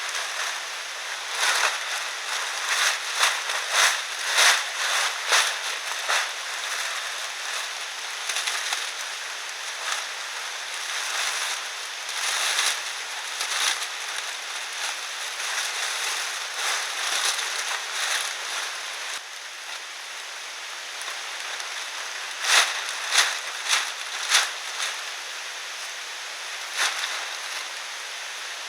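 Irregular rustling and crackling over a steady hiss, with a cluster of sharper crackles about twenty-two to twenty-five seconds in.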